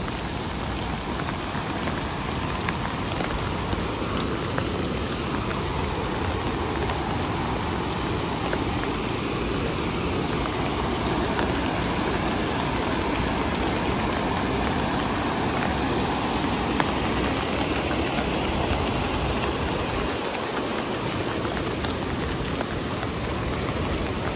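Heavy rain falling steadily on an umbrella, mixed with the steady rush of a rocky mountain river in spate.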